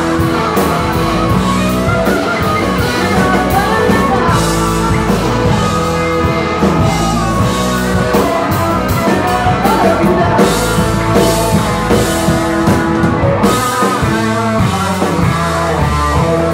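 Live rock band playing: two electric guitars, bass guitar and drum kit. The bass drops out for a moment about fourteen seconds in.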